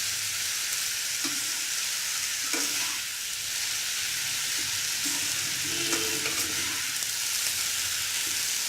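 Chowmein noodles and chopped vegetables sizzling steadily in hot oil in a pan while being stirred and mixed, with a few light knocks from the stirring.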